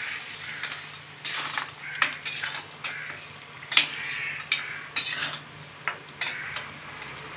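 Steel spatula scraping and clinking against the sides and bottom of a steel kadai as thick goat trotter curry is stirred: about a dozen irregular sharp scrapes and knocks.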